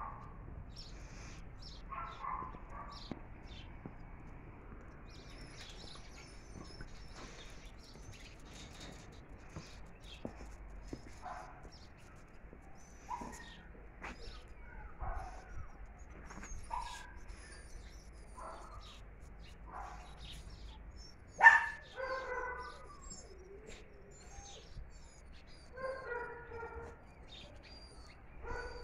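Dogs barking now and then, with one loud bark about two-thirds of the way through followed by a few more, and another short run of barks near the end. Small birds chirp faintly in the background.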